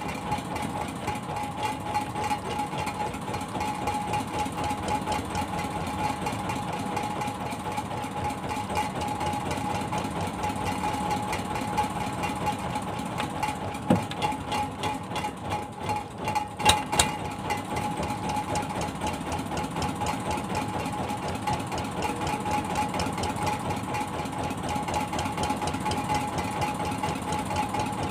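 Fishing boat's engine running steadily with a fast, even chugging rhythm and a steady hum, with a couple of brief knocks a little past halfway.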